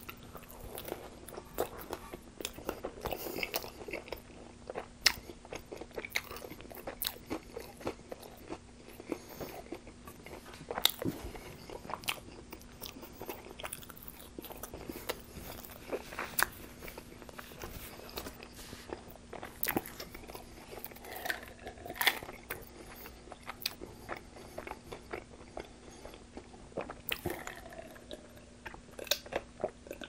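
Close-up eating sounds: a person biting and chewing a homemade KFC-style chicken twister wrap, with wet mouth noises and many irregular sharp clicks and smacks.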